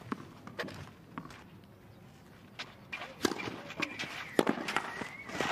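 Tennis ball bounced a few times on the clay court before the serve, then the sharp pops of racket strikes and bounces in a rally from about two and a half seconds in.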